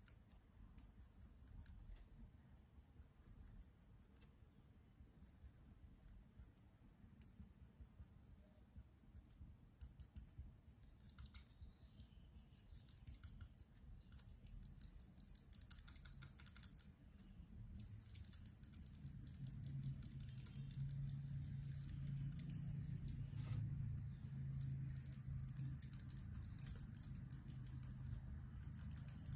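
Copic alcohol marker nib working over paper in quick short strokes: a faint, rapid scratching and tapping. A low steady hum comes in about two-thirds of the way through.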